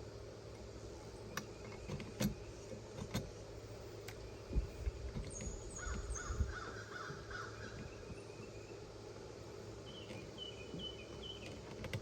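Scattered clicks and light knocks from wire stripping at an electrical box, with birds calling in the background: a quick series of short calls near the middle and another near the end.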